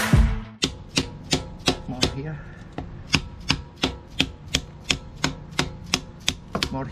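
Brief music that cuts off about half a second in, then a hammer tapping steadily on a wooden block, about three sharp knocks a second. The taps are driving a new front crankshaft oil seal into the timing cover of a Yanmar 3JH5E marine diesel, with the wood protecting the seal.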